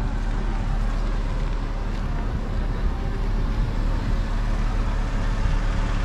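Steady wind rumble buffeting the microphone of a moving cyclist, with road noise.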